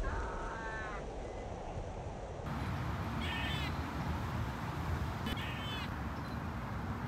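Animal calls: three runs of short, rapidly repeated notes, the first lower-pitched than the later two, over a steady low outdoor rumble.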